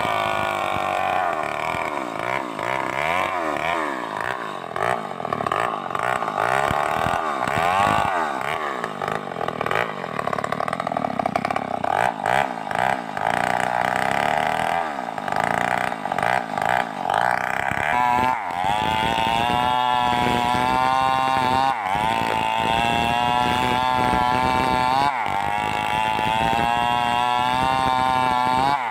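Stihl 038 two-stroke chainsaw running, its engine pitch rising and falling through the first part, then held high and steady from about two-thirds in.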